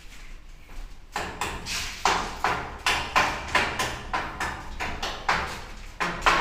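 Repeated sharp knocks on steel, about three a second and uneven, starting about a second in, with a short ringing after each.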